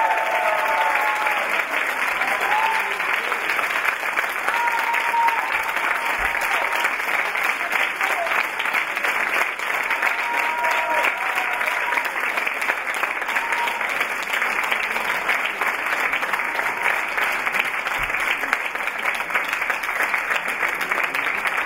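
Audience applauding steadily, a dense, sustained round of clapping.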